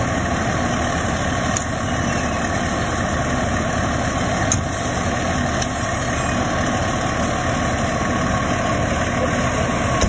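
Fire engine's diesel engine running steadily, a continuous even hum.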